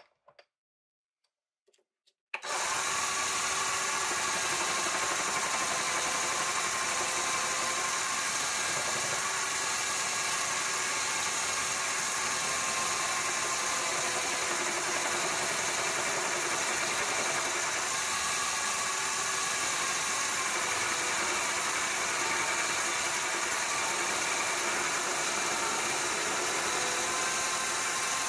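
Small benchtop metal lathe running, spinning a metal rod held in its three-jaw chuck. It comes in suddenly about two seconds in and then runs steadily with a high motor whine.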